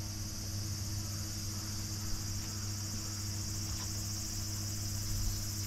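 Steady, high-pitched buzzing of an insect chorus over a low, steady electrical hum.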